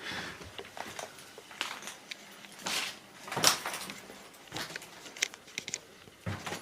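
Scattered rustles, clicks and knocks of paper and debris being handled and stepped over, coming at irregular intervals with a few louder ones in the middle and near the end.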